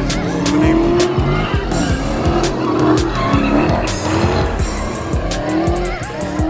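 Car tyres squealing in wavering, rising and falling glides as cars drift and slide, with engines revving. Background music with a steady beat plays along.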